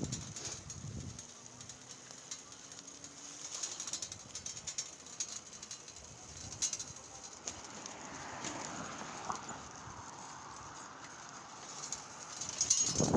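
Bicycle rear freewheel ticking as the Schwinn Collegiate coasts, a rapid run of small clicks over faint road hiss. A louder rushing noise builds near the end.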